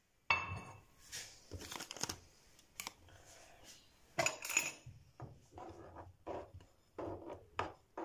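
Kitchenware knocks and clicks: a ceramic dish set down on the counter and a spoon scraping chopped strawberries off a plastic cutting board into it. The sounds are scattered short knocks and taps, the loudest just after the start and about four seconds in.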